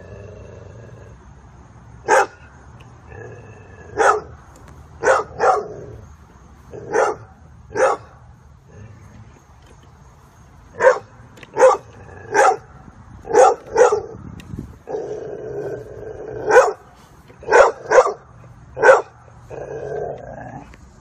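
A dog barking repeatedly: about fifteen short, sharp barks at uneven intervals, some in quick pairs.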